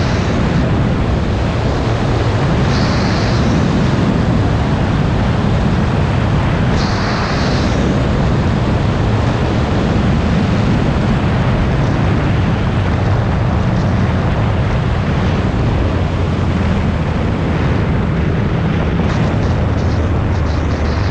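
Wind rushing over a motorcycle-mounted action camera while riding, with the low drone of a 2014 Yamaha FZ-09's 847 cc three-cylinder engine underneath. Brief higher hisses cut in a few times in the first several seconds.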